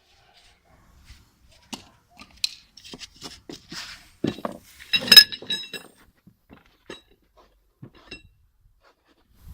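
Hard objects clinking and knocking, with one loud metallic clank about five seconds in that rings briefly.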